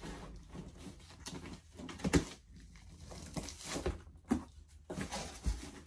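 Scattered knocks and rustling from a cardboard shipping box being handled and opened, with a couple of sharper knocks about two seconds and four seconds in.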